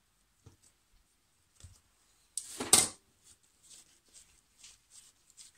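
Kitchen knife knocking lightly on a hard countertop as it cuts soft dough, then a louder scraping clatter about two and a half seconds in as the knife is put down on the counter. Faint soft pats and ticks of hands shaping the dough follow.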